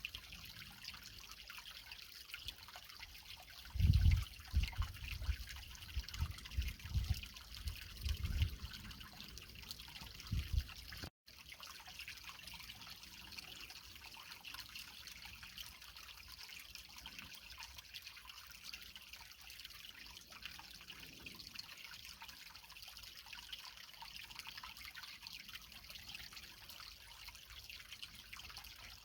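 Small creek trickling and babbling over rocks, a steady hiss of running water. Between about 4 and 10 seconds in there are irregular low rumbling thumps, and a momentary dropout just after them.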